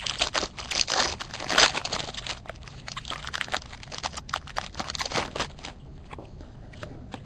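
Foil wrapper of a Bowman Chrome baseball card pack crinkling as it is torn open by hand: a dense run of crackles that thins out after about five or six seconds.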